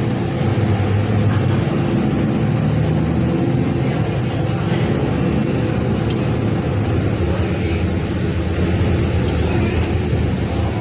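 A public bus's engine and road noise heard from inside the cabin as the bus drives along, a steady low drone with a rumble under it.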